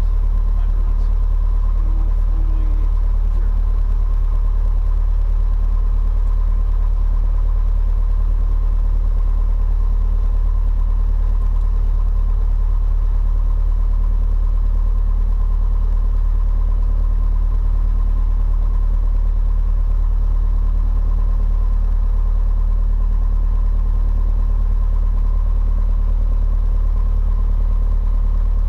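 Piper PA-28-140 Cherokee's four-cylinder Lycoming piston engine idling steadily with the aircraft at a standstill, heard from inside the cabin as an even, deep drone.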